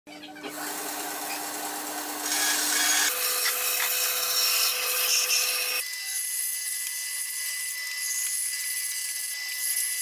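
Bandsaw running with its blade cutting through pallet pine, a steady hum under a hiss of sawing. The sound shifts abruptly about three seconds in and again about six seconds in, when the low part drops away and a thin high whine and hiss are left.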